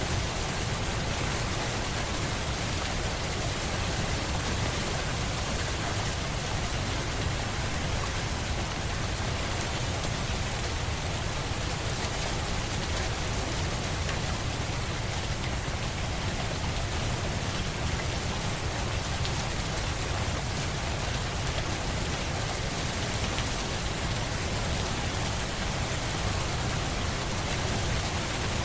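Steady rain falling, an even hiss of drops on surfaces with a low rumble underneath, unchanging throughout.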